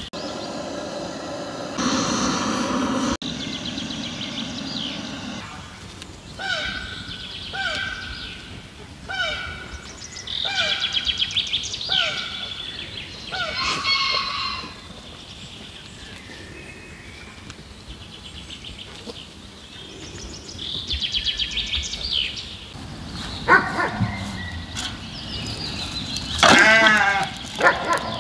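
Sheep bleating at intervals, with a long wavering bleat near the end.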